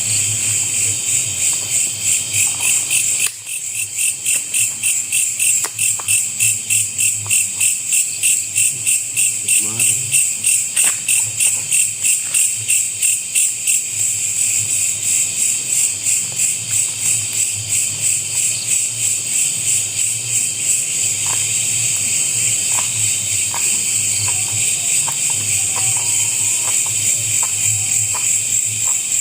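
Loud chorus of night insects: a shrill chirring that pulses about twice a second, over a steady low hum.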